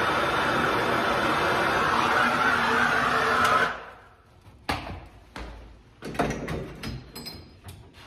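Hand-held MAP gas torch burning with a steady hiss while it heats a copper fitting for soldering. The hiss stops abruptly about three and a half seconds in. A few light clicks and knocks follow.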